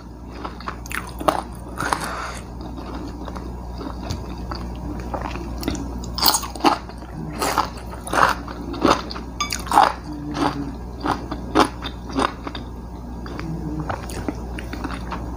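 Close-miked chewing of fried chicken, with many irregular crisp crunches as the soft bones are bitten and gnawed.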